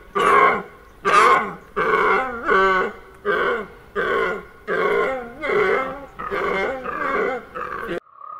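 Reindeer grunting: about a dozen short, wavering calls in a steady run, roughly one and a half a second, that stop abruptly near the end.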